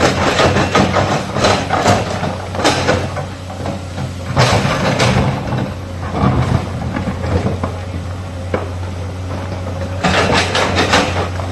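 Hydraulic excavator's diesel engine running steadily under load, with repeated bursts of scraping and clattering as it digs earth and rock.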